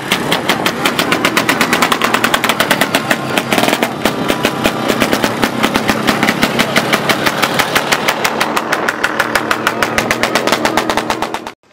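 Vintage snowmobile engine idling close by with a rapid, even popping beat, about eight pops a second; the sound cuts out abruptly near the end.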